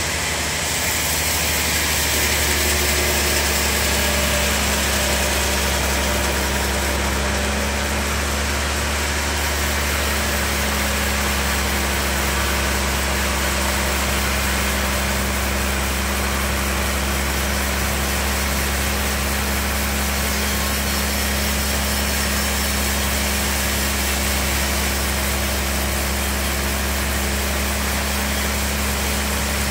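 Large sawmill bandsaw running steadily, its blade sawing lengthwise through a big log over a constant low motor hum. The noise rises a little in the first two seconds, then holds even.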